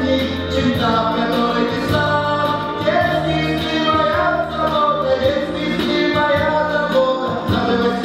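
A song from a children's stage musical: singing over band accompaniment with bass and light percussion.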